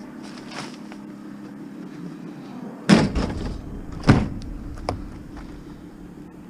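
Two heavy bangs about a second apart, then a lighter click, over a steady low hum: scrap metal or a van door being handled during loading.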